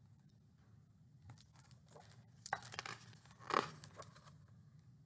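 Picture book pages rustling and crinkling as the book is handled and a page is turned, in a few short spells, the loudest about two and a half and three and a half seconds in.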